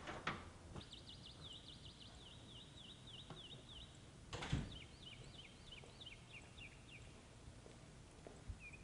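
A songbird singing two quick runs of short, repeated high notes over faint outdoor background noise. A doorknob latch clicks just after the start, and a single knock sounds about four and a half seconds in, the loudest sound here.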